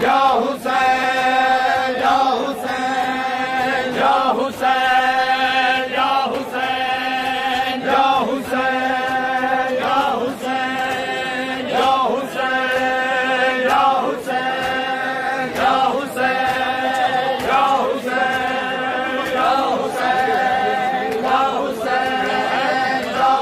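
A group of men chanting a noha (Shia lament) in unison, in long held phrases that repeat about every two seconds, over a steady beat of open-handed chest-beating (matam).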